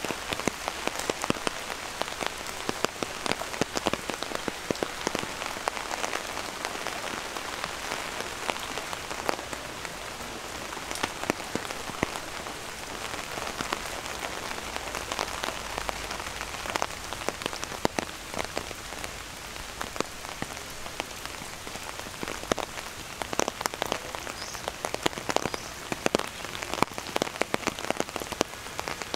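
Steady rain falling, with many sharp close drop hits scattered through a constant hiss.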